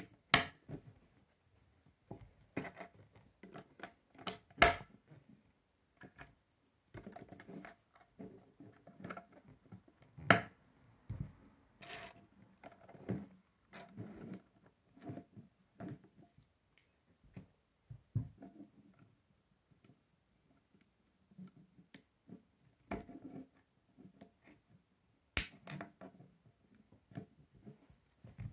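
Plastic K'nex rods and connectors being handled and snapped together on a wooden tabletop: irregular small clicks and rattles, with a few louder sharp snaps spread throughout.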